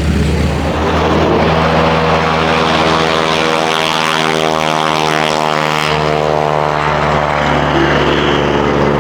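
Propeller-driven biplane flying past: a steady piston-engine drone with the rush of its propeller, which swells through the middle and eases off.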